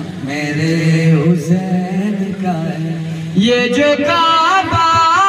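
Men singing an Urdu Sufi kalam in praise of Hussain into microphones: a deep male voice holds long, wavering chant-like lines, and about three and a half seconds in a second, higher male voice comes in louder.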